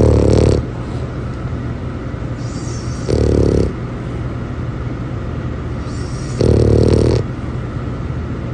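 American bully dog snoring: three loud rasping snores about three seconds apart, each with an airy, whistly hiss of breath.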